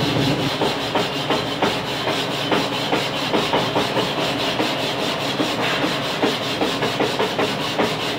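Stick (shielded metal arc) welding arc crackling steadily as a rod burns along a lap joint, a dense irregular crackle that stops suddenly just after the end.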